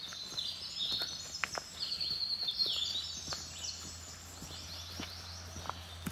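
Songbirds singing rapid runs of high, falling chirps, busiest in the first half, over footsteps on a dirt woodland trail.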